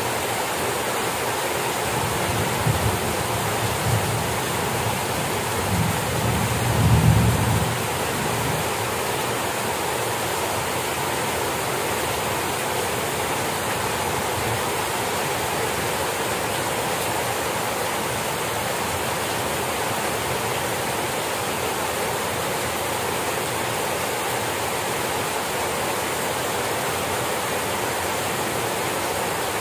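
Heavy rain pouring down steadily, a dense, even hiss. A low rumble swells and fades a few seconds in.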